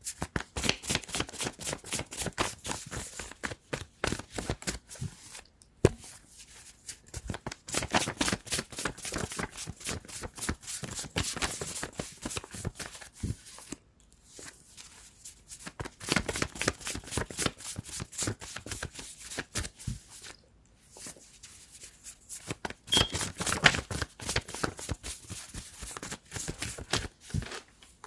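A deck of tarot cards being shuffled by hand: runs of fast riffling and rustling several seconds long, broken by short pauses, with a couple of sharper snaps.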